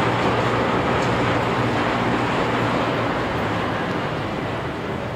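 Fireboat's engines running as it maneuvers close alongside the pier: a steady low rumble with a broad rushing noise over it, easing slightly over the last second or two.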